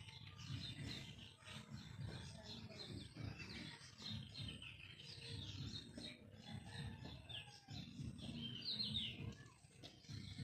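Bird chirping in many short, high calls scattered throughout, a few of them quick falling notes near the end, over a low rumble of background noise.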